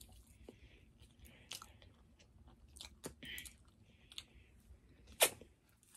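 A person chewing a crispy fried chicken sandwich: soft crunches and wet mouth clicks, with one sharper, louder crunch about five seconds in.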